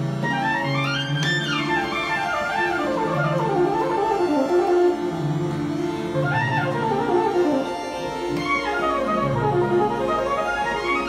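Nord keyboard's arpeggiator running fast arpeggios that sweep up and down over several octaves, layered with a Moog Little Phatty analogue synthesizer played by hand, over held low notes that change every second or so.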